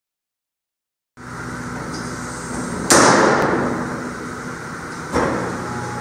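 Orwak Power 3820 vertical baler with a steady hum, broken by two loud metal bangs about two seconds apart. The first bang is the louder and rings out for about a second.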